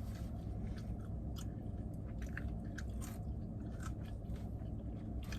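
Close-up chewing and crunching of chicken wings, with many short sharp bites and smacks scattered through, over a steady low hum.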